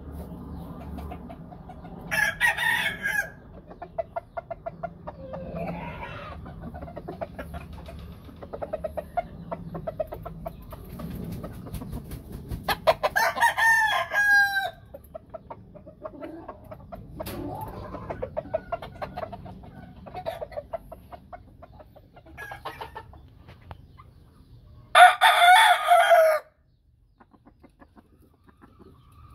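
Gamefowl roosters crowing three times, the last crow the loudest, with short clucking from the hens between the crows. All sound cuts off suddenly just after the last crow.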